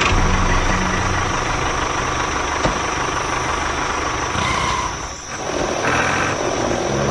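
Tractor engine running steadily at idle with a low, even throb. It dips briefly about five seconds in, then picks up again.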